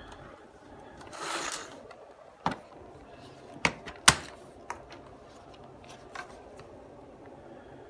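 Plastic clicks and knocks from handling the removable dust container of a Bosch 25.2 V cordless vacuum, with a brief scraping rustle about a second in. The sharpest click comes about four seconds in.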